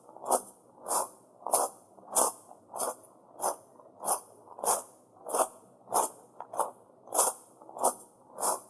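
Footsteps walking at a steady pace on shrine gravel (tamajari), each step a crisp crunch of small pebbles shifting underfoot, about fourteen steps, a little under two a second.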